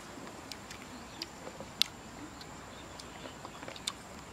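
Scattered small clicks and smacks of people plucking small wild berries off their stalk and chewing them, with one sharper click a little before the middle.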